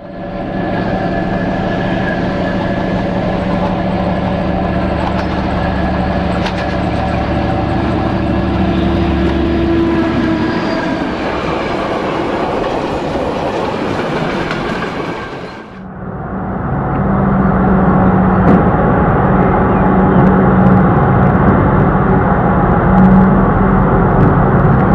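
Diesel locomotive of DR class 120 running steadily, its Kolomna 14D40 two-stroke V12 diesel engine throbbing. About two-thirds of the way in, the sound cuts abruptly to a louder, duller engine sound with the same steady running.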